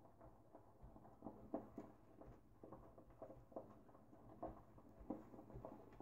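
Shaving brush swirling and whipping lather in a bowl: faint, soft wet strokes about two a second as the lather is worked up.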